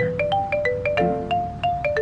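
Cheerful background music led by a marimba or xylophone, a quick run of struck notes, about four or five a second.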